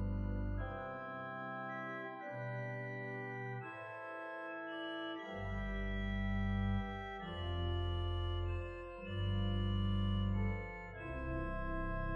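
Church organ playing slow sustained chords that change every second or two, with deep bass notes dropping out and returning.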